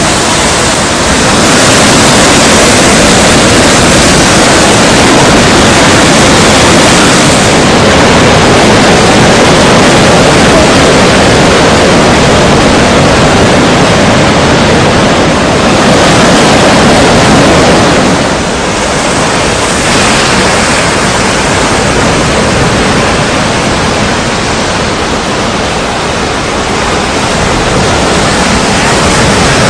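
Strong wind gusting against the microphone over rough sea, with the rush of surf beneath; a loud, near-constant roar that eases briefly about two-thirds of the way through.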